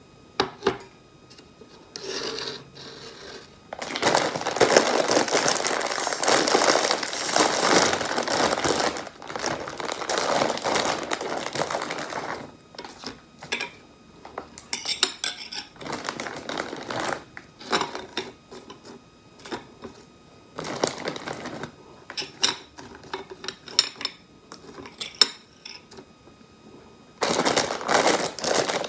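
Plastic cream cracker packet crinkling for several seconds as it is torn open and handled, then crackers set down one by one on a ceramic plate with light clicks and clinks, with more crinkling of the packet near the end.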